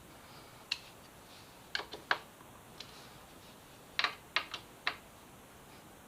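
About ten sharp, irregular metallic clicks and taps from hand tools on a bolt as the Yamaha FZ6R's rear-set bracket bolts are tightened. They come in small clusters, the loudest near two seconds in and between four and five seconds in.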